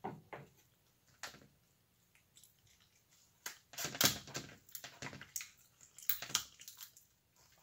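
Kitchen scissors cutting and cracking through a king crab leg's shell: a few sharp snips at first, then after a short pause a quick run of snips and cracks.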